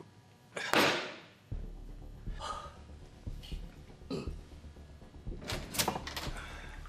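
Light knocks and clunks of things being handled at a desk, scattered and irregular, over a low steady hum. A louder rushing sound fades out about a second in.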